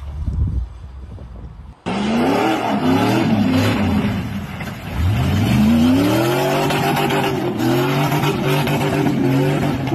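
Jeep Cherokee's engine revving hard as its wheels spin through mud: the pitch climbs and drops, climbs again and holds high for several seconds, then falls away near the end.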